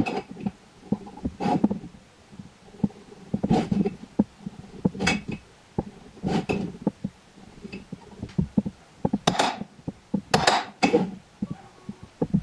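Square steel tubes and a metal combination square being handled on a workbench: irregular knocks, clinks and short scrapes of metal set down and slid into place while the tubes are marked out.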